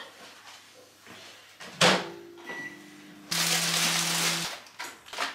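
A wooden chopping board knocked down onto a kitchen table, then about a second of plastic packaging rustling as a bag of tortilla wraps is opened, over a low steady hum.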